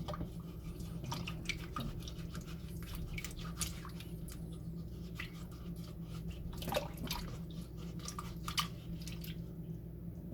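A pear being washed and handled in water: scattered, irregular drips and small splashes, over a steady low hum.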